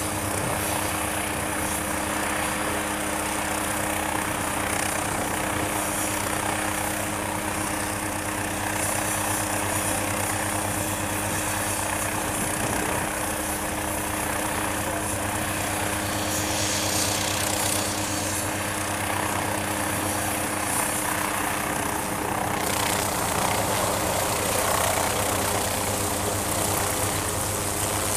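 MQ-8B Fire Scout unmanned helicopter's turboshaft engine and main rotor running steadily, with a steady hum of several tones. About three-quarters of the way through, the sound shifts and grows slightly louder as the aircraft lifts off into a hover.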